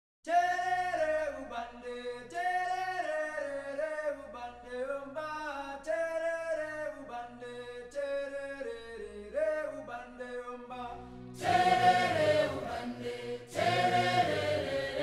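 Unaccompanied voices singing a slow, held melody. About eleven seconds in, more voices join and the singing gets louder and fuller.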